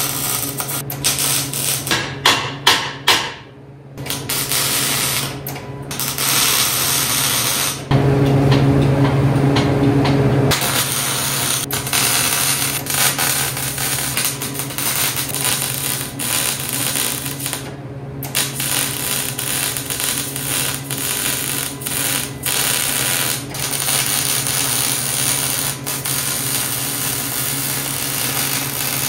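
Arc welding on a steel-tube frame: the welding arc crackles and sizzles in runs of several seconds, broken by short pauses, over a steady low hum.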